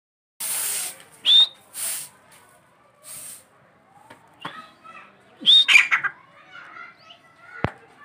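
Grey francolin calling: a loud, sharp upward-swept note about a second in, and another at about five and a half seconds that breaks into a quick stutter of notes. Short bursts of hiss come in the first few seconds, and there is a single sharp knock near the end.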